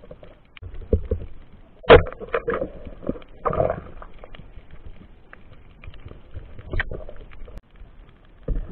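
Muffled knocks and clicks picked up underwater by a camera in its waterproof housing as the diver's hands and gear bump it. The loudest knock comes about two seconds in and others near seven seconds and near the end, with a short rushing burst around three and a half seconds.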